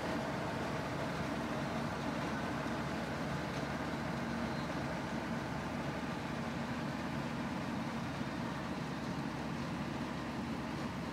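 Combine harvester's diesel engine and threshing machinery running steadily as it cuts the crop, a continuous drone with a low hum that grows slightly fainter as the machine moves away.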